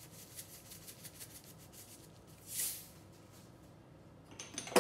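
Salt and pepper being sprinkled: a short, soft hiss about halfway through, then a few light clicks near the end.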